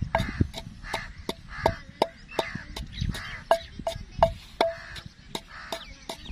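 A pestle pounding and grinding soaked almonds and spices into a thandai paste in a mortar: a steady knock about three times a second, with a short ring on each stroke and a rubbing scrape between strokes.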